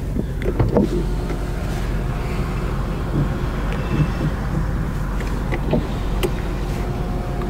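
Electric sunshade motor running inside a BMW 745Li's rear cabin as the shade moves, with a few sharp clicks, over a steady low hum.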